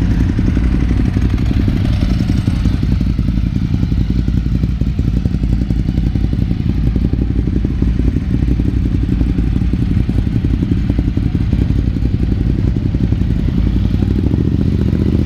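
Motorcycle engine running steadily at low revs close to the microphone, with an even low beat and no revving.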